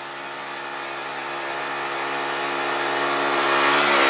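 Husqvarna lawn tractor engine running steadily, growing louder as the tractor drives toward the microphone and passes close by.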